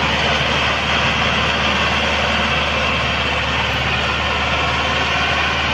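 Massey Ferguson 385 tractor's four-cylinder diesel engine running steadily under load as it pulls a heavily loaded trolley.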